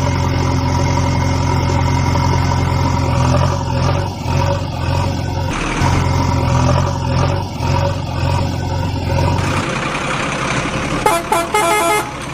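A heavy vehicle's engine running steadily, breaking off briefly about six seconds in and stopping about ten seconds in. A run of short horn toots follows near the end.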